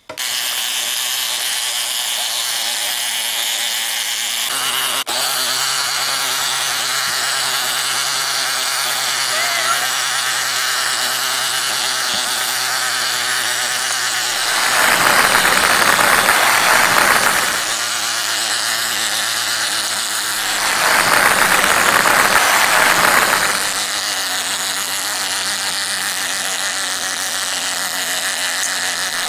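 Toy fishing game's small motor and gears running steadily, a constant whirring hum as the pond turns the fish around. Twice it swells into a louder, rougher rush for about three seconds.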